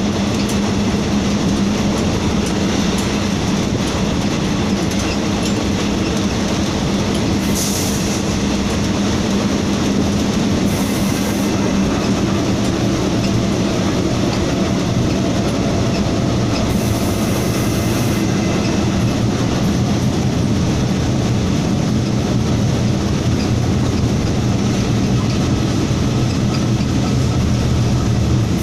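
Steady running noise inside a diesel locomotive's cab with the side door open: the engine drones and the wheels roll on the rails. The engine's low note shifts lower about halfway through.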